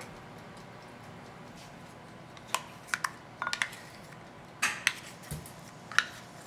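A few light clicks and knocks from a plastic measuring cup and utensils against a ceramic mixing bowl. They start after a couple of quiet seconds and come singly or in quick pairs.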